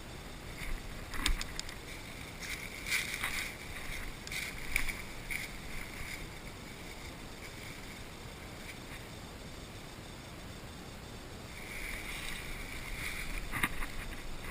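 Scattered rustling with light clicks and scrapes, in irregular clusters about a second in, around three to five seconds in, and again near the end, over a faint steady hiss.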